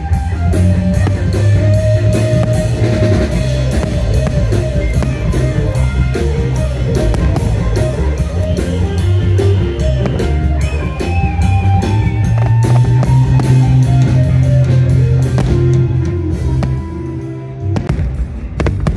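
Background music with a steady beat, dropping away near the end.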